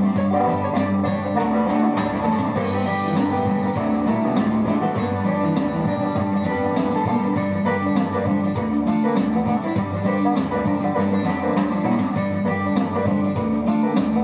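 Guitar music playing through a small TDA2030A mono amplifier module driving a speaker, under test on a 12 V supply.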